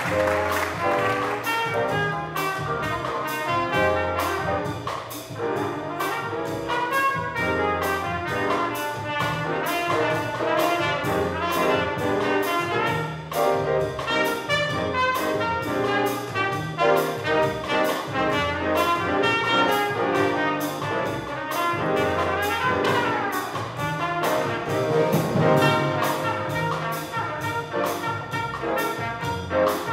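Small jazz ensemble playing live: horns over piano, upright bass and drum kit, with a steady cymbal beat. A horn slides in pitch a little past the middle.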